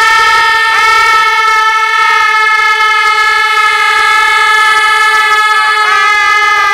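Several girls screaming "Ah!" together in one long high-pitched held note, with small breaks in pitch about a second in and again near the end as voices catch breath or come back in.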